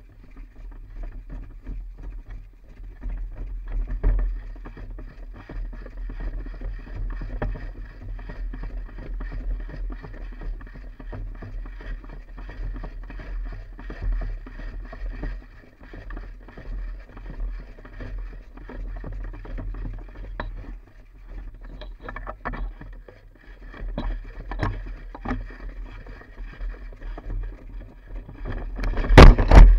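Steady low rumbling handling and wind noise on a body-worn action camera as the player moves, with a few scattered sharp clicks in the second half. Near the end comes a loud thump and scuffle as he falls over.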